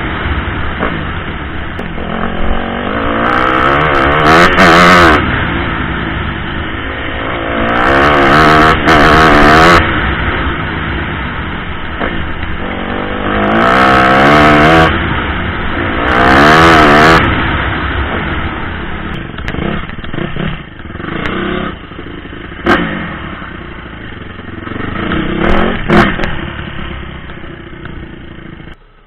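Off-road motorcycle engine ridden hard, its pitch climbing in repeated rising sweeps as it accelerates and shifts up through the gears. Over the last several seconds it eases off, with a few sharp knocks.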